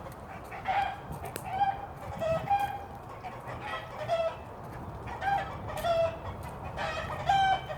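Chickens clucking: a string of short pitched calls about one a second, with a slightly longer call near the end.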